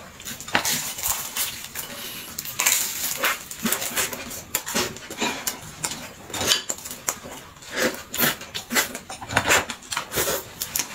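Close-up mouth sounds of eating stuffed flatbread: chewing and wet lip smacks, many short irregular smacks and clicks in quick succession.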